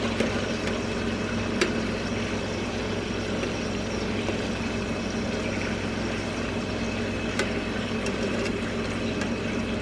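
Pork chops sizzling steadily in a frying pan on the stove, over a constant low hum, with a couple of sharp clicks.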